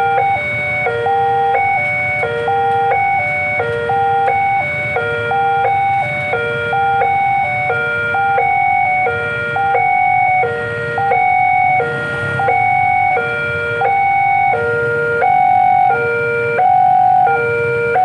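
Electronic warning alarm of a railway level crossing sounding. It steps back and forth between a high and a lower tone in a steady repeating cycle, over a low rumble of traffic.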